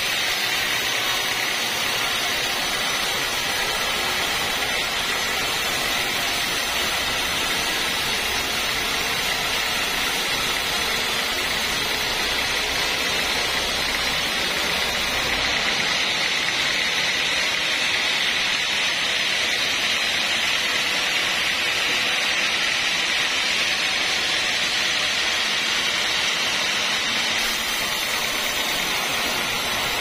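Band sawmill running, its band blade sawing through an old kayu jawa log: a steady, loud hiss and whine. About halfway through the low hum drops away and the high sawing noise gets stronger.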